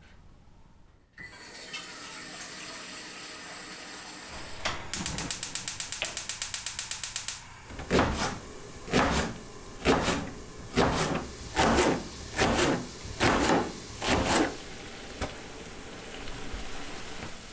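Kitchen knife slicing through a leek onto a plastic cutting board: eight even cuts, about one a second. Before the cuts comes a rapid run of clicks lasting about three seconds, over a steady hiss.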